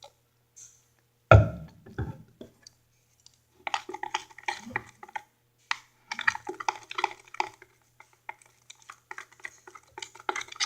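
A single heavy thump about a second in, then several seconds of irregular clicks and taps as containers and slime ingredients are handled on a tabletop.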